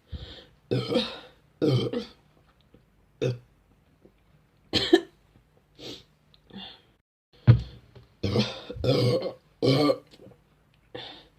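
A woman burping over and over: about a dozen separate burps, some short and clipped and a few longer ones lasting up to about a second, with brief pauses between them.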